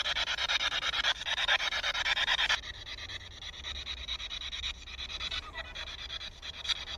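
Spirit box sweeping through radio stations, giving a hissing static that is chopped into a fast, even flutter. It is loud for the first two and a half seconds or so, then drops to a fainter static. A steady low hum runs underneath.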